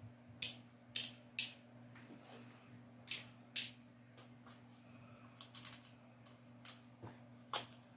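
Small tablets dropped one by one into the compartments of a plastic weekly pill organizer, each landing with a sharp click; about a dozen clicks at uneven intervals, the loudest in the first half.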